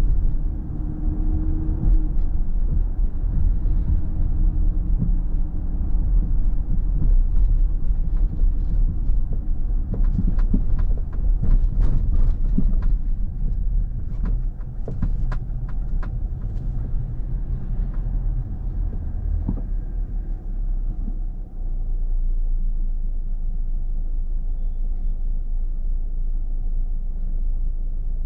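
Car driving, heard from inside the cabin: a steady low rumble of engine and road noise. A run of sharp clicks and knocks comes about halfway through, and the rumble settles a little quieter and steadier in the last third.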